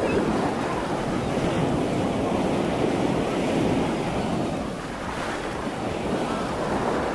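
Sea surf on a sandy beach: waves breaking and foam washing up over the sand, with wind buffeting the microphone. It eases off a little about five seconds in.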